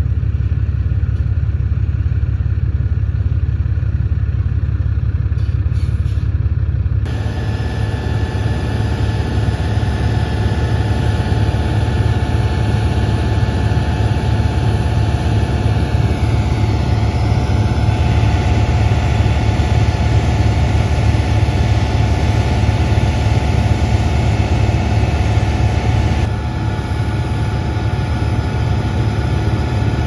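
John Deere tractor engine running steadily, driving a Loftness grain bag extractor that augers grain out of a silo bag up into a semi trailer. About seven seconds in, the extractor's auger and flowing grain join the low engine drone with a steady whine. Around the middle the whine dips briefly in pitch and settles lower.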